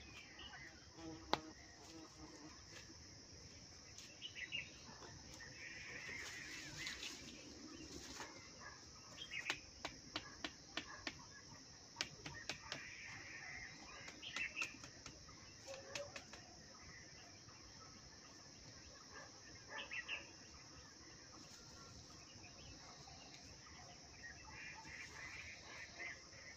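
Leafy branches rustling, with scattered sharp cracks and clicks of sticks being handled and fixed to a wooden stick frame; the clicks come in a quick run about a third of the way in. A steady high insect drone runs underneath.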